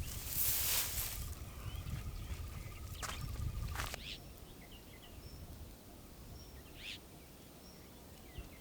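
Quiet rural field ambience with scattered faint bird chirps and a short trill. A few rustles and knocks come in the first four seconds, then it settles quieter.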